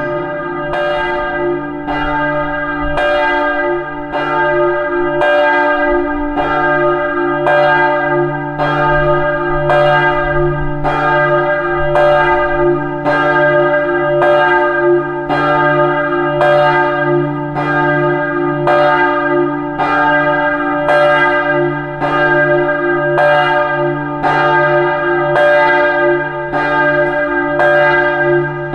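Several church bells ringing together in a peal, with a fresh stroke about every three quarters of a second and their tones ringing on between strokes.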